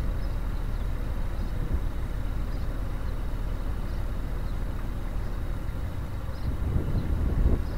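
Wind buffeting the microphone: a low, uneven rumble that swells in a gust near the end.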